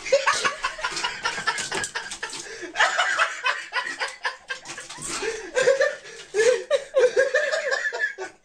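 A person laughing in repeated short bursts, fullest in the second half, over scattered clicks and rustling.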